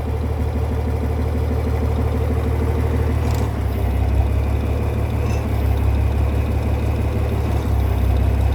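John Deere 4010 tractor engine running steadily, its sound changing about three and a half seconds in.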